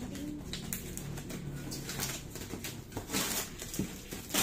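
Cardboard carton being handled and pulled open, the stiff cardboard rustling and scraping, with louder scrapes about three seconds in and again at the end.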